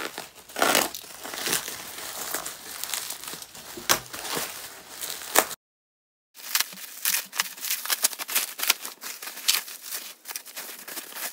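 Packaging being rustled and crinkled by hand while a parcel is unpacked, with many small clicks and taps. The sound drops out completely for under a second about halfway through.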